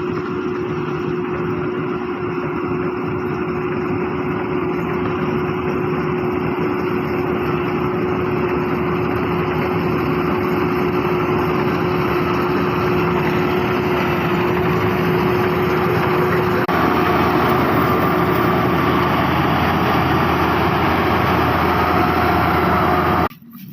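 A small engine running steadily, with one constant hum over a dense noise, cutting off suddenly near the end.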